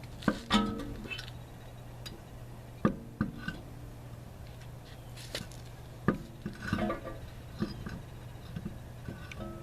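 A series of irregular knocks and clunks from handling a spare wheel and tools while fitting it onto a car's hub, over a steady low hum.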